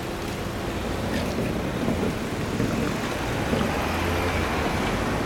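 A Shizuoka Railway 1000 series electric train running slowly away, a steady rumble of wheels and motors mixed with street traffic noise.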